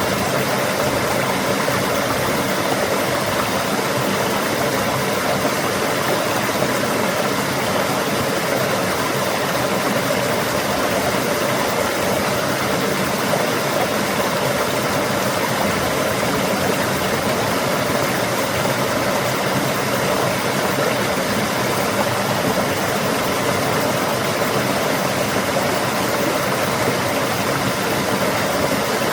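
Running water rushing steadily, an even, unbroken noise.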